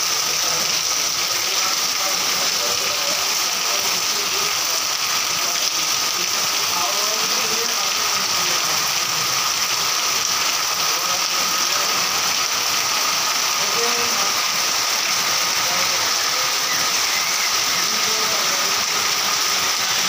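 Heavy rain falling steadily on corrugated sheet roofs and a flooded lane, with water running off the roof edges: a dense, even patter and hiss with no break.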